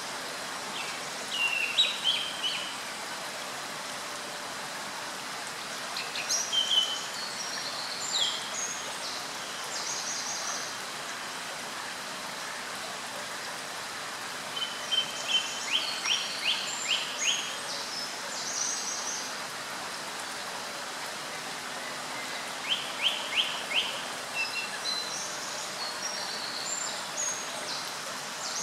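Small songbirds singing in several short phrases of high chirps and fast trills, over the steady rush of a flowing stream.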